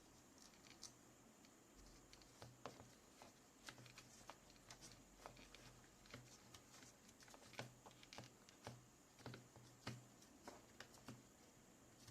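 Faint clicks and light rustling of hands working a replacement ear cushion onto Bose QC35 II headphones, its clips being pressed into place. The clicks come quickly and irregularly from about two seconds in.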